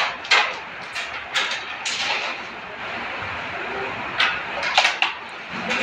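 Carrom striker and wooden carrom men clicking on the board: several sharp clicks, with a quick cluster of them about four to five seconds in, over a steady background hiss.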